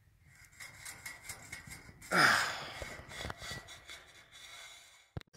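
A man's sharp, breathy grunt of effort about two seconds in, the loudest sound, amid rustling and clicking from handling the conduit. He is straining to yank a fish tape that is stuck in half-inch electrical conduit.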